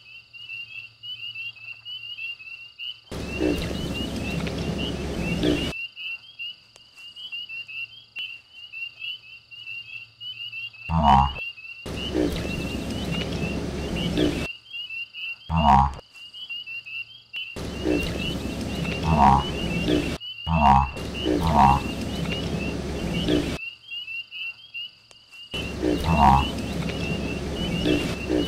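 Frog chorus: a continuous high, pulsing trill at about four pulses a second, overlaid in several stretches of a few seconds each by deep, grunting croaks.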